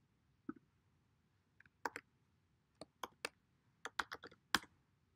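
Faint clicking of computer keyboard keys: a dozen or so irregular keystrokes, bunched closer together near the end, as an IP address is typed.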